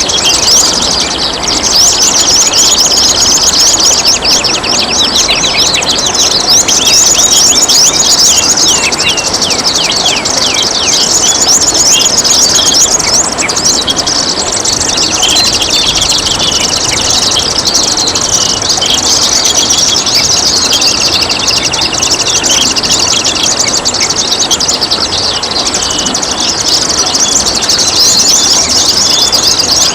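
Songbirds chirping and trilling rapidly and without pause, with a few buzzy trills, over a steady rush of splashing water.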